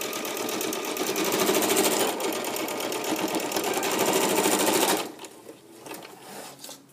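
Electric sewing machine stitching through nylon strapping at a fast, even rate, then stopping abruptly about five seconds in. Faint handling of the strap follows.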